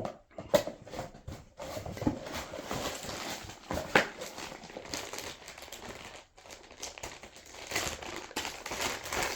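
Crinkling, rustling handling noise with scattered small clicks and knocks (the sharpest about four seconds in) as the Gbox's DB15 cable is picked out and handled on the workbench.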